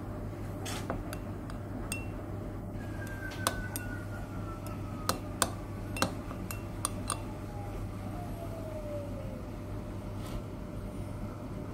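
A metal measuring spoon stirring flour into vinegar in a small glass tumbler, clinking against the glass about a dozen times at irregular intervals, most of them between about three and seven seconds in.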